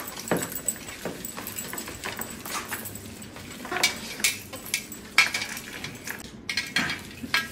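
People eating noodles noisily with their hands and mouths straight off a steel platter: irregular wet smacking and slurping, with small clinks of metal.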